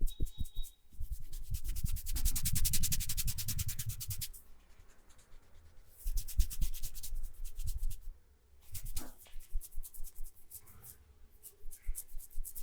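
Hands briskly rubbing and patting during a massage, in quick, even strokes. The loudest run comes about a second in and lasts some three seconds, and two shorter, lighter runs follow.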